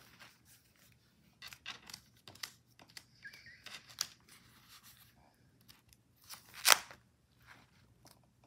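Thick coil-bound book of glued magazine pages being leafed through, paper rustling and crackling as pages flip over the wire coil. A single louder slap near the end as the book falls shut.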